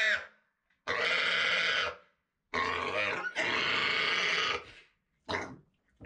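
Pig screeching while restrained for hoof trimming: a string of loud, shrill screams of a second or two each with short gaps between, the last one brief.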